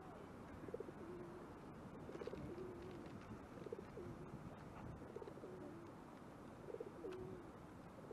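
Pigeon cooing: a low, wavering coo repeated every second or two over a steady background hiss.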